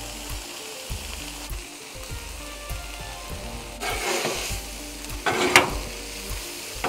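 Food sizzling steadily on a hot Blackstone flat-top griddle. Twice in the second half comes a louder rush of sizzling and scraping as a metal spatula works the mix across the steel top.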